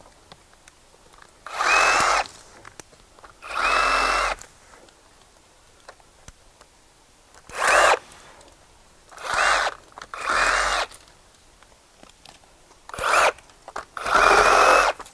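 A Ryobi One+ HP full-size cordless reciprocating saw cutting small tree limbs in short bursts, about seven cuts, each lasting half a second to a second. The motor's whine dips and bends as the blade bites and clears each branch.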